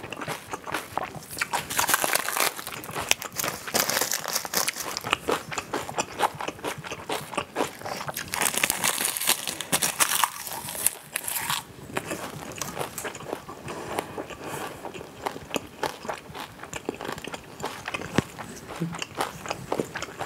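Close-miked chewing and crunching of a mouthful of bibimbap mixed with fresh salad greens, with kimchi: a dense run of wet crackles and crunches, loudest in two spells, a couple of seconds in and again around the middle.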